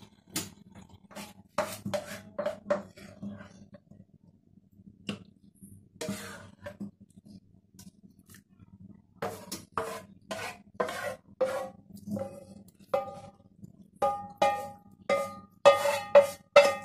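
Spatula knocking and scraping against a non-stick frying pan as cooked minced pork is scraped out into a bowl. In the second half the knocks come about two a second, each with a short metallic ring from the pan, and grow louder near the end.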